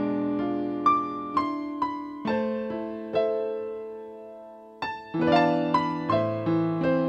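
Background piano music: unhurried single notes and chords, each dying away, with one chord left to fade before the playing picks up again about five seconds in.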